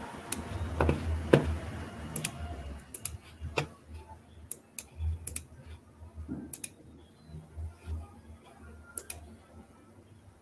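Computer keyboard typing and clicking: irregular sharp key clicks, some in quick runs, over low dull thumps. Heard through a video-call microphone.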